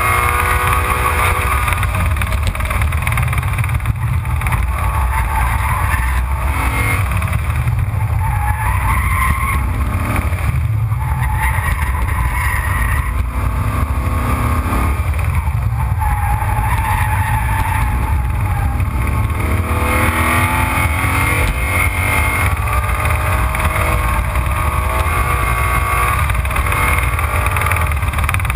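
Race car lapping a track at speed, heard from low on the front splitter: a heavy wind and road rumble on the microphone, with the engine note rising and falling over and over as the car accelerates and slows.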